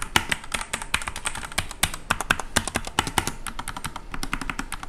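Rapid typing on a mechanical keyboard fitted with red switches, which are linear: a quick, irregular stream of key presses, several each second.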